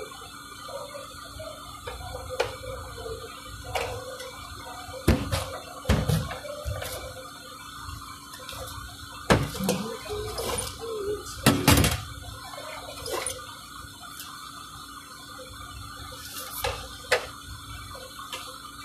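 Scattered knocks and clatter of a pizza being cut with a large rocker knife on a wooden pizza board and handled, the sharpest knocks about five seconds in and just before twelve seconds. A steady hum runs underneath.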